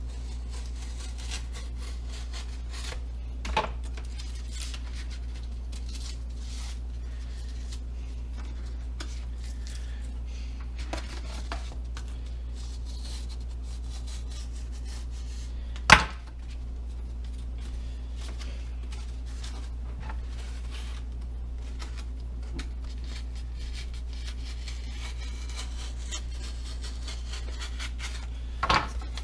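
Hands working with tools and materials at a workbench: scattered light clicks and rubs, with a sharp knock about four seconds in, a louder one about sixteen seconds in and another near the end. A steady low hum runs underneath.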